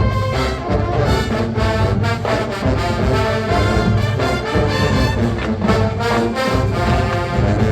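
College marching band playing a funk number at full volume, with brass, trombones and trumpets to the fore, over a steady beat from the drum line.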